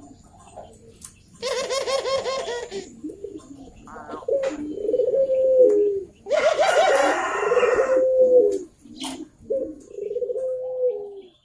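Barbary doves (burung puter) cooing: a rolling, pulsing call about a second and a half in, followed by long held coos, another rolling call running into a long coo at about six seconds, and a shorter coo near the end.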